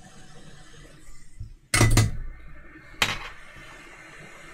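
Two sharp clinks of hand tools being set down on a hard workbench, the first and louder a little under two seconds in with a short ring, the second about a second later, over a faint steady hiss.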